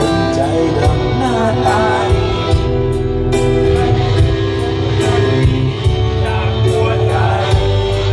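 Live band playing a rock-pop song: electric guitar and keyboard over a steady drum beat, with a singer's voice in places.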